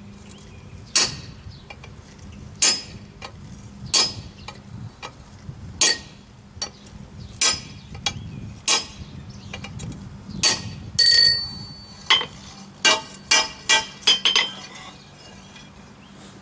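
Hammer striking a round-nose punch into steel on an anvil: single blows about every one and a half seconds, then a quick run of lighter blows near the end. Some strikes leave a short metallic ring.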